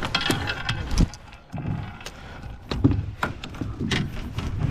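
Irregular knocks, clicks and rattles of fishing gear and a small flopping trout being handled in an aluminium boat.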